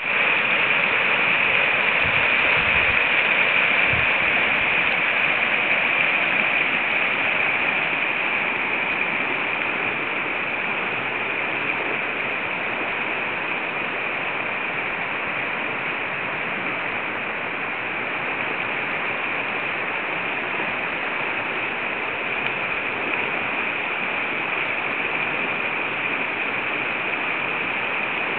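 River water rushing steadily over rocky rapids, a continuous even hiss, a little louder for the first several seconds.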